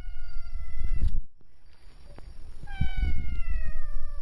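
A cat meowing: a long drawn-out meow that trails off about a second in, then a second, louder long meow starting a little past halfway. Each slides slightly down in pitch. Low thumps and rustling run underneath.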